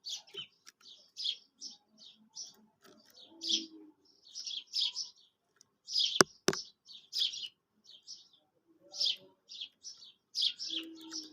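Quail calling over and over, short high chirps coming singly and in quick runs. Two sharp clicks come close together about six seconds in.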